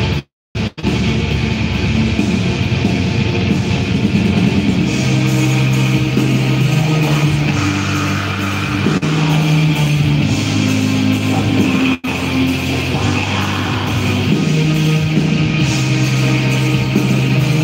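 Black metal band playing live, with electric guitars and drums, recorded from within the crowd; long held low notes come in about five seconds in. The sound cuts out briefly just after the start and again about twelve seconds in.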